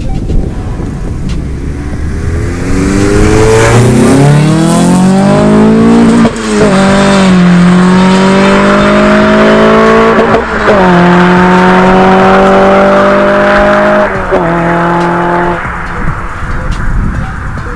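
Car engine accelerating hard, its note climbing, then shifting up three times with a brief dip and pitch drop at each change. Near the end it backs off and drops to a rougher, quieter running sound.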